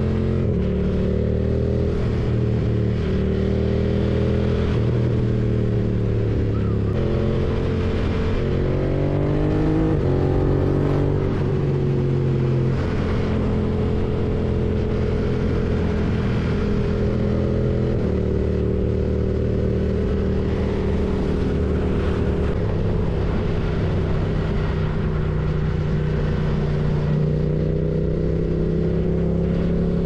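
BMW F900R's parallel-twin engine running on the move, its revs rising and falling a few times, with a climb around eight to ten seconds in and a drop soon after.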